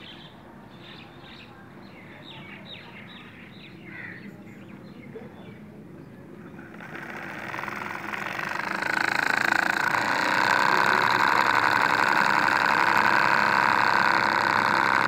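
Small wire-fed electric motor and gearbox of a toy tractor running under load as it drags a mini cultivator through sand: a steady whine that swells from about seven seconds in and then holds even. Faint bird chirps before it.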